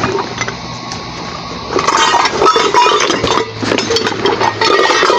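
Hard objects clinking and clattering with short ringing tones as they are handled and moved about, starting about two seconds in, over a steady low hum.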